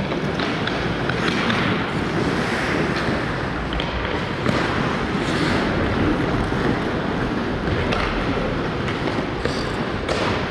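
Ice hockey being played: skate blades scraping and carving the ice, with the sharp clack of sticks and puck now and then over a steady rink noise.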